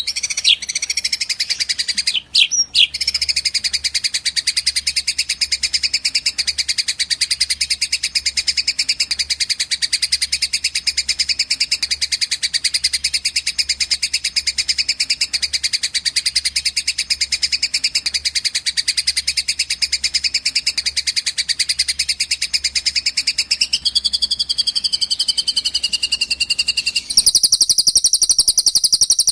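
Recorded songbird calls for training cage birds: a loud, very fast, high-pitched chattering trill that runs on almost without pause, broken twice briefly about two seconds in. Near the end it changes to a higher, denser trill.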